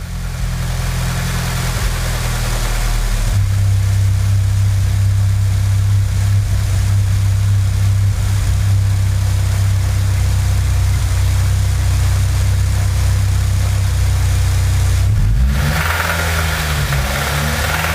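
Nissan SR20DE four-cylinder engine running steadily, its speed rising briefly about fifteen seconds in. The engine has an abnormal noise that the owner calls a bad sound.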